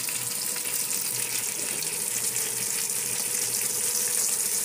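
Steady sizzle of pomfret frying in hot oil in a kadai, mixed with water bubbling in a small steel pan on the next burner.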